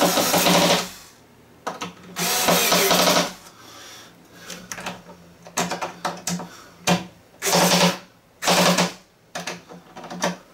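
Small cordless electric screwdriver driving screws into a wooden cabinet in several short runs of about a second or less, with pauses and small clicks between them.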